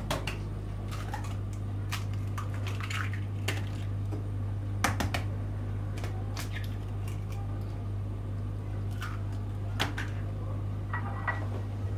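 Eggs being cracked and handled over a small ceramic bowl: scattered sharp taps and clicks of shell and bowl, the loudest about five seconds in, over a steady low hum.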